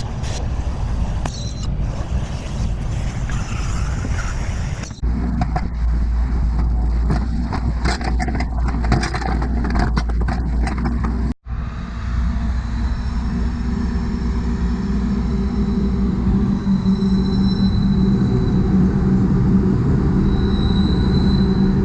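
Engine-driven machinery running, with scattered knocks. The sound changes abruptly twice, the last stretch a steady engine hum.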